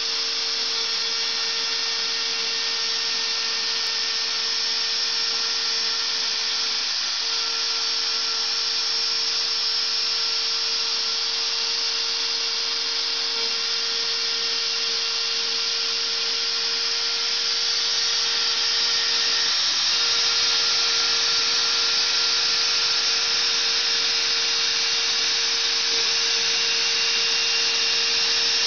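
CNC router spindle milling marble under a flow of cooling water: a steady loud hiss and grind with one constant whine that falters briefly a few times.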